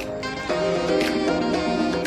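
Background music: a melodic instrumental track with a light percussive beat.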